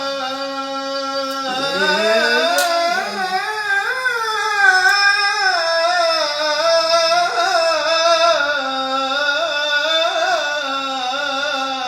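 Arabic tarab singing: a long held note, then a wavering melismatic run that climbs and turns for several seconds before settling back onto a steady held note.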